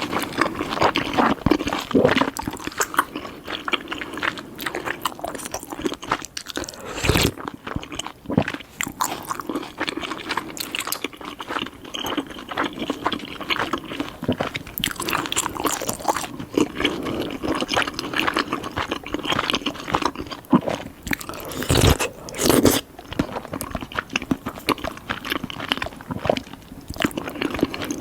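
Close-miked eating of tteokbokki rice cakes: continuous biting and wet, sticky chewing with small mouth clicks and smacks. A few louder knocks stand out, about seven seconds in and twice around twenty-two seconds.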